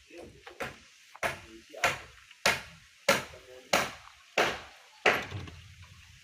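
Steady hammer blows, seven in an even rhythm about one every two-thirds of a second, each trailing off briefly, with a few lighter taps before them.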